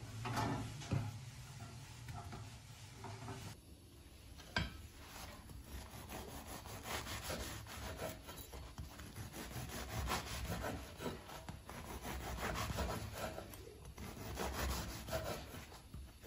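A knife sawing through a crusty day-old loaf on a wooden cutting board, slicing it into rounds with repeated back-and-forth strokes. There is a sharp knock about four and a half seconds in.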